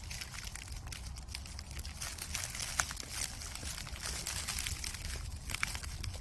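Dry leaves and undergrowth rustling and crackling in many small crisp clicks, over a low steady rumble.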